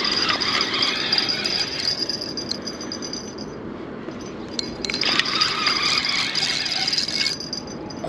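Fishing reel being cranked in two bursts, a rattling, clicking whir each time: line is being reeled down on a hooked sturgeon between slow pulls of the rod.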